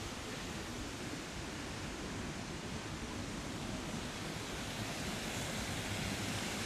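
Steady rush of falling water from a large artificial waterfall, growing slightly louder toward the end.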